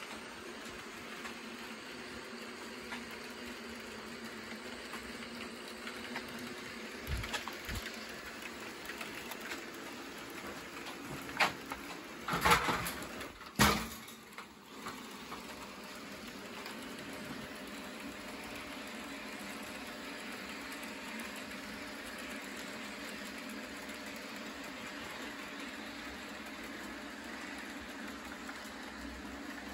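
HO scale model trains running on the layout: a steady low whir of small electric motors and wheels rolling on track. A few sharp clicks and knocks come about halfway through.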